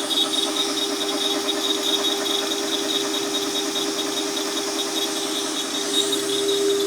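CNC router spindle running steadily with an end mill cutting an aluminium plate: a constant high whine with a fast pulsing cutting rasp over it.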